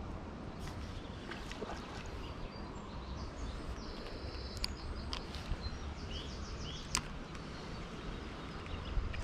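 Outdoor ambience with a steady low wind rumble on the microphone, a few sharp clicks in the middle, and faint short bird calls about halfway through.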